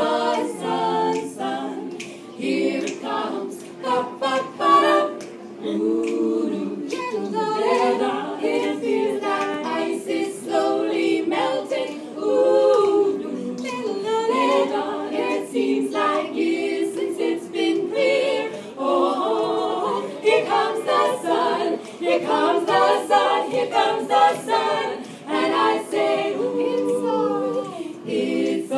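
Women's choir singing a cappella in several parts, with no instruments heard.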